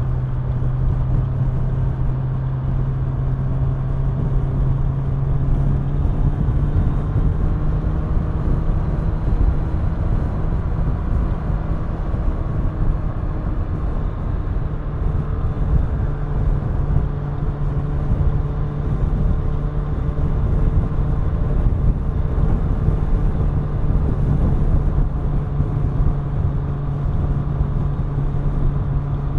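Kawasaki Ninja 1000's inline-four engine and exhaust running steadily at cruising speed, the engine note holding nearly even with small rises and dips in pitch, over wind and road noise.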